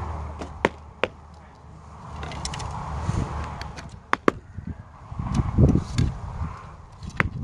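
Arrows being shot from bows: a handful of sharp snaps from bowstrings releasing and arrows striking the targets, two close together about a second in, two more about four seconds in and one near the end. A louder low rumble comes in a little after five seconds.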